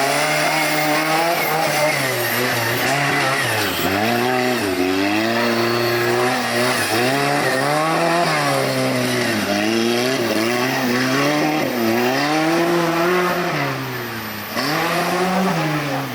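Off-road 4x4 vehicle's engine revving up and down over and over, each swell lasting about one to two seconds, with a brief dip in level near the end.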